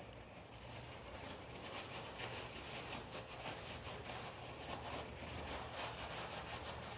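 Paper towels rubbing and rustling as spilled engine oil is wiped up: a continuous run of quick, scratchy strokes.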